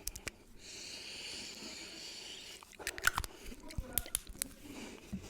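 Close-miked ASMR handling sounds: an even hiss lasting about two seconds, then a string of sharp clicks and taps.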